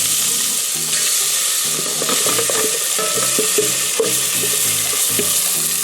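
Chopped onion and garlic frying in hot oil in a pan, sizzling steadily while being stirred, with small scraping knocks from the stirring.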